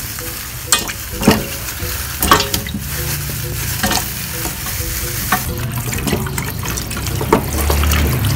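Plastic bag crinkling and raw chicken feet knocking into a stainless steel pot in a sink, with a few sharp clunks. Tap water starts running over them near the end.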